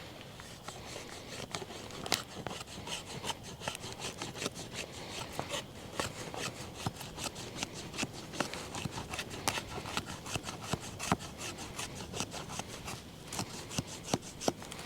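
Old Hickory machete blade working wood: a quick, irregular run of short scraping and cutting strokes, several a second.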